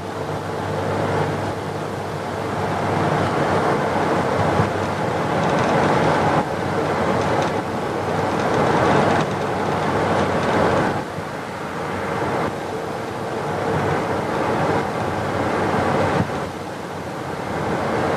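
Road noise inside a moving car driving in the rain: a steady rush of tyre and rain noise that swells and eases.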